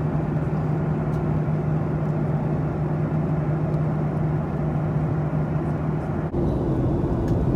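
Steady vehicle drone: an engine hum over continuous rumbling noise. The hum shifts to a different pitch at a sudden change about six seconds in.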